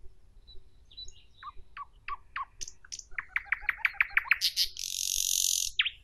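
Nightingale singing one song phrase: a few soft notes, then a fast run of repeated downslurred whistles, ending in a loud harsh rattle and one last downslurred note.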